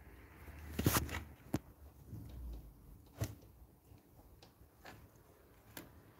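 Hands handling wires and a small electronic circuit board on a workbench: a few sharp clicks and knocks, the loudest about a second in, with faint rustling between them.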